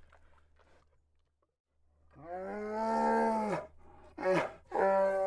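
Grizzly bear roaring: after a quiet start, one long roar of about a second and a half, then two shorter roars in quick succession near the end.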